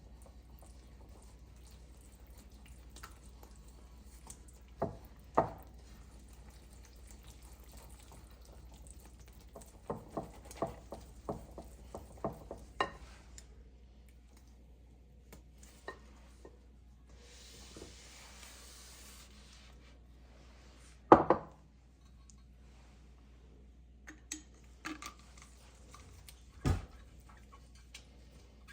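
Kitchen dishes and utensils being handled: scattered knocks and clinks, with a quick run of them about ten seconds in and a single sharp knock, the loudest, about 21 seconds in. A short hiss comes about 17 seconds in, and a steady low hum runs underneath.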